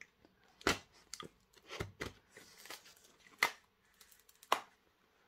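Brown packing tape and cardboard being torn open on a taped parcel: a series of short, sharp rips with rustling and crinkling in between.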